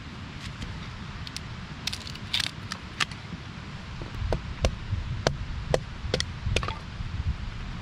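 Hatchet splitting a small stick into kindling on a log. First come a few light taps and wood clatter, then in the second half about six strikes at an even pace, each a sharp crack with a dull thud.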